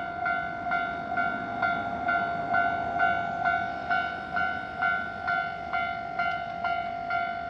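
Japanese level-crossing electronic warning bell ringing in a steady repeated ding, a little over two strikes a second, each strike on the same fixed pitch.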